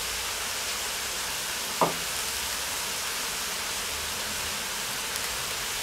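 Sliced mushrooms and mini gherkins frying in a cast-iron Dutch oven, with a steady sizzle. A single brief short sound comes about two seconds in.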